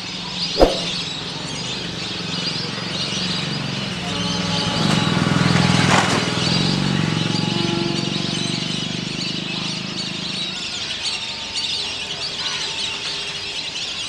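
A large flock of wild ducks calling: a dense, continuous chatter of many high whistles and chirps. A low motor hum swells in the middle and fades again, and there is one sharp click about half a second in.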